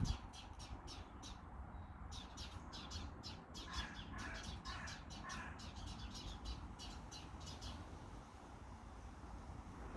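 Small birds chirping in quick, repeated high notes, with a few lower two-note calls around the middle; the chirping stops about two-thirds of the way through, leaving a low rumble.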